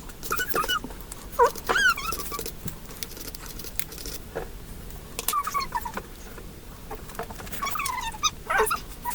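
Dog whimpering: short high-pitched whines that rise and fall, in clusters, with scattered clicks between them.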